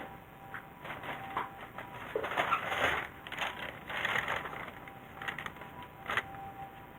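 Irregular rustling and clattering of objects being handled, with a sharp click about six seconds in.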